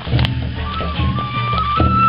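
Folk music: a high flute-like melody stepping upward, over a regular low beat. A single sharp click sounds just after the start.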